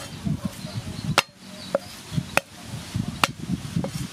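A knife chopping garlic cloves on a wooden chopping block: sharp knocks of the blade hitting the board, the loudest about a second apart, with softer thuds between them.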